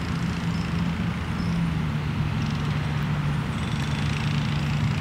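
A steady low engine drone holding one pitch, dipping slightly about two seconds in, over a constant outdoor hiss.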